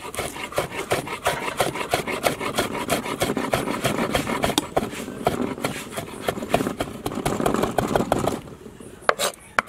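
Chef's knife rapidly chopping a Scotch bonnet pepper on a wooden cutting board: fast, even knife strikes on the wood, about seven a second, stopping a little over eight seconds in, with a few more strikes near the end.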